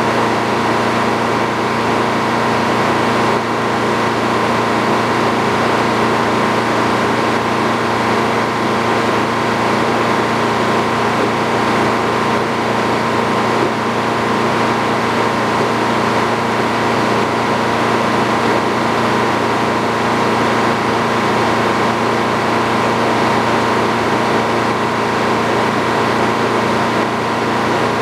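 Sawmill running steadily, a continuous machine drone that holds the same pitch throughout.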